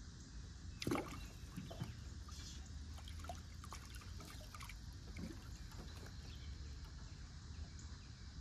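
Quiet water trickling and lapping around a jon boat, with small taps and knocks on the boat and one sharper knock about a second in.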